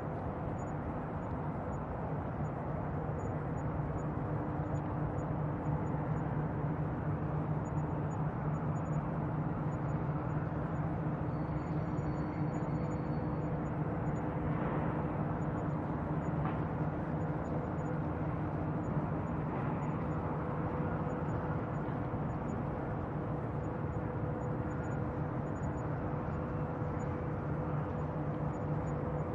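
Steady outdoor ambience: a constant low mechanical drone, with a few steady hum tones over an even rumble that does not change.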